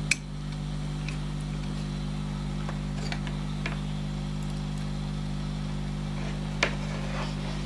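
A sharp click as a USB plug is pushed into the bridge board's socket, over a steady electrical hum. A few faint ticks follow, and another click comes near the end.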